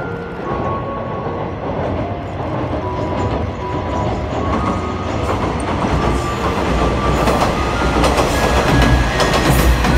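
Two-car JR West KiHa 120 diesel railcar train crossing a steel girder bridge, growing louder as it draws near: a deepening rumble with the clickety-clack of wheels over rail joints, loudest near the end.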